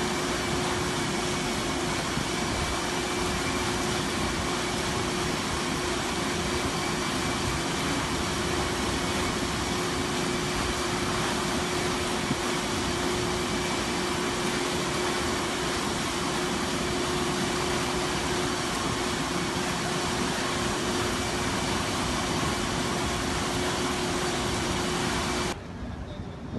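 Ship's ventilation or air-conditioning blower on the deck of a docked paddle-wheel boat, running as a loud, even rush with a steady low hum and a faint high whine; it cuts off abruptly near the end.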